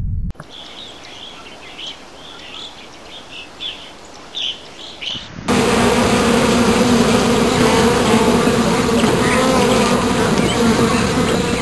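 Honeybee colony buzzing at the entrances of wooden hive boxes: a loud, dense, steady hum that starts abruptly about five and a half seconds in. Before it there is a quieter stretch of faint outdoor sound with short high chirps.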